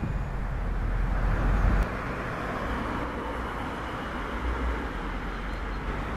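Street traffic going by: a passing car's tyre and engine noise swelling and fading over a steady road hum. A low wind rumble on the microphone stops abruptly about two seconds in.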